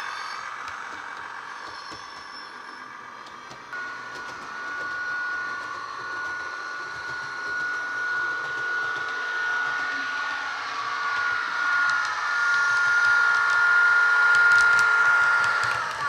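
Bachmann OO-gauge Class 158 diesel multiple unit model playing its SWD Class 158 DCC sound file through its pair of small speakers: the diesel unit's running sound with a steady high whine that comes in about four seconds in and grows louder as the model runs past.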